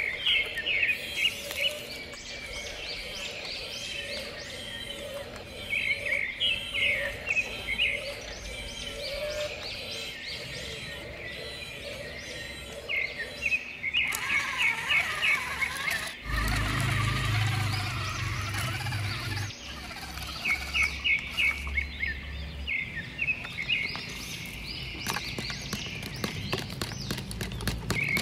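Small songbird singing outdoors: short phrases of rapid high chirps, repeated every several seconds. About halfway through, a low steady hum comes in for a few seconds.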